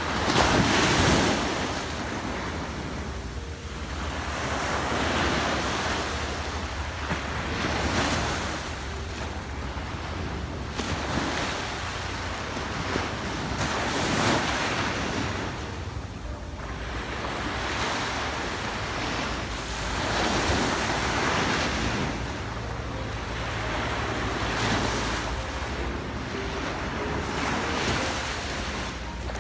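Sea waves breaking on the shore, the surf swelling and falling every few seconds, with wind rumbling on the microphone.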